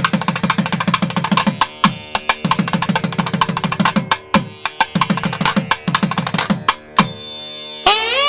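Indian drum music: fast runs of hand-drum strokes with bending low tones, phrased in repeated patterns. A melody instrument with gliding notes comes in near the end.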